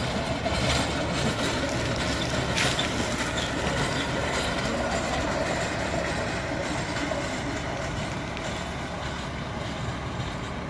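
Steel wheels of a hand-pushed railway push trolley rolling steadily along the rails, with one sharp click about two and a half seconds in.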